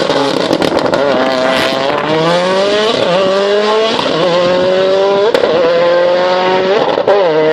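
Race car engine running hard under load, its pitch climbing steadily for a couple of seconds, then holding. It gives short sharp jumps in pitch about midway and again near the end.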